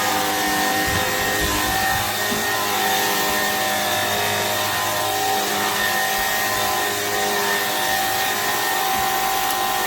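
Shark stick vacuum cleaner running steadily: a constant motor whine over the rush of air.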